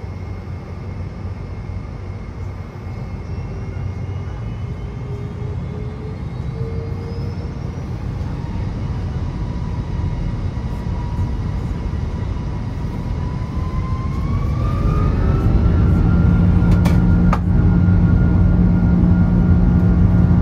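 A Boeing 747-400's four Rolls-Royce RB211 turbofans heard from inside the cabin: a steady rumble with a whine that creeps up in pitch. About 14 seconds in the whine climbs quickly and the sound grows louder as the engines spool up to takeoff power.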